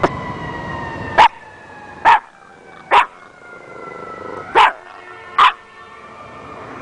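Dog giving six short, sharp barks about a second apart, with a thin, high, slowly falling whine sounding between the early barks.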